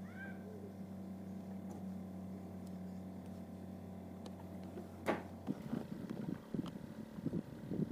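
Steady low drone of a boat engine, with a sharp knock just before it stops suddenly about five seconds in; then irregular rustling and small knocks.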